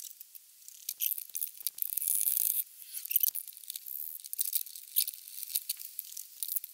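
Irregular clicks, scrapes and a brief rustling hiss of hand tools and the golf cart engine's plastic air box being handled as it is unbolted and worked free. The sound is thin and tinny, with no low end.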